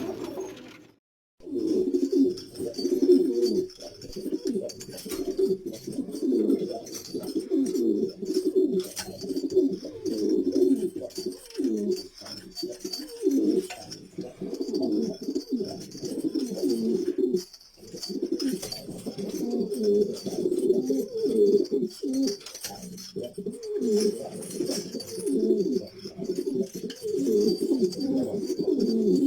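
Many domestic pigeons cooing together, their calls overlapping continuously. There is a short gap about a second in.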